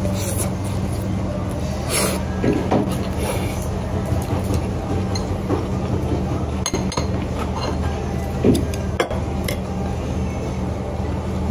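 Chopsticks and tableware clicking and clinking against a plate now and then, over a steady low hum.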